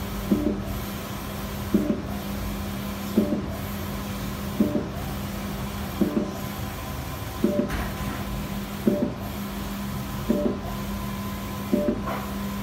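Etech 1.6 m large-format inkjet printer running a print job: a steady hum, with a short mechanical clatter that repeats about every one and a half seconds as the print-head carriage makes its passes.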